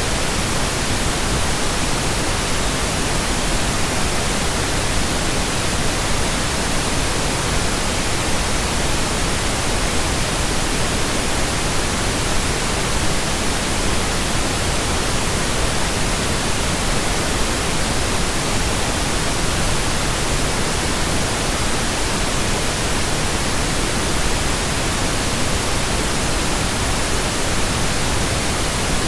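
Steady synthetic pink noise: an even, unbroken hiss across the whole range, with no tones, changes or breaks.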